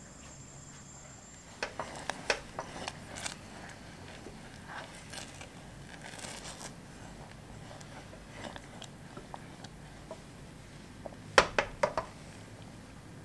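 Silicone spatula stirring and scraping thick chocolate syrup in a saucepan, with scattered clicks and knocks against the pan and a short run of louder knocks near the end.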